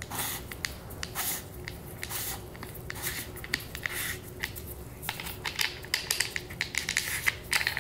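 Gloved hands twisting an AAC Tirant 9 pistol suppressor tube, hand-tightening its threaded bottom end cap: a string of irregular rubbing and rustling with small clicks.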